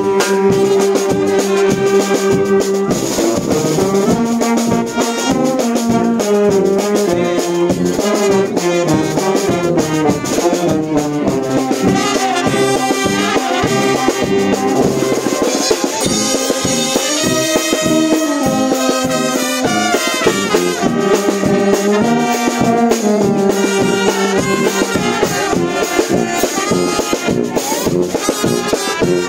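A live brass band playing a loud, upbeat tune: saxophones, trumpets and low brass carry the melody over a steady beat on snare drum and cymbal.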